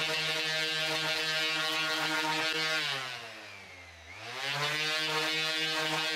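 Corded electric random orbital sander running steadily with a buzzing hum as it sands the edge of a plastic motorcycle seat cover. About three seconds in, the motor winds down and drops in pitch, then speeds back up a second later and runs steadily again.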